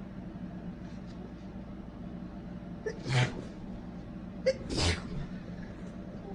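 A man with a head cold sneezing twice, about a second and a half apart, each with a short catch of breath just before it.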